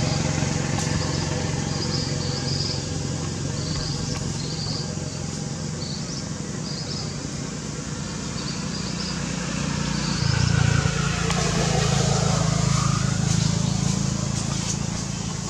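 A steady low rumble like road traffic, growing louder about ten seconds in as if a vehicle passes, with faint short high chirps repeating over it.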